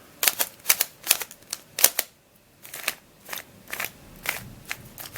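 Plastic Shengshou Square-1 puzzle being turned by hand, its layers clicking and clacking in a quick, irregular series of sharp clicks, with a brief pause about two seconds in.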